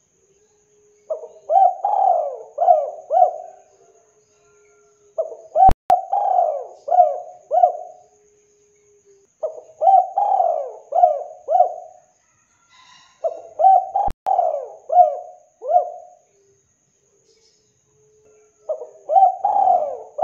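Spotted dove cooing: five phrases about four seconds apart, each a quick run of four or five rolling coos.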